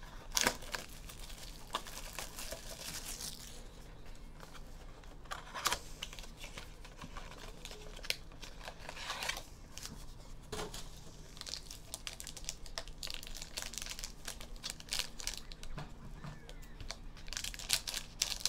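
Wrapping on a mini box of trading cards crinkling and tearing as it is opened, with scattered crackles and small handling clicks.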